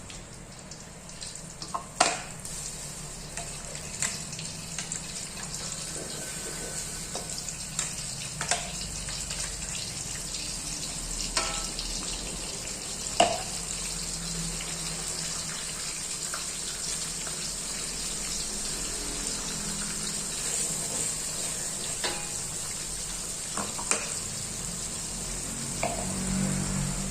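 Ground spice paste with lemongrass, kaffir lime leaves and bay leaves sizzling steadily in hot oil as it is sautéed. A handful of sharp clicks, as a utensil stirs against the pan, mark the sizzle.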